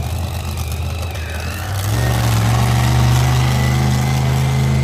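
Monster truck engine running with a deep, steady note. It is a little lower for the first couple of seconds, then comes back up louder and holds.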